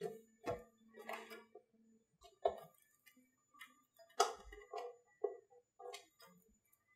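Clear PVC tubes being pushed onto the plastic non-return valves under a chemical dispenser: a series of short, irregular plastic clicks and taps, the strongest a little past halfway.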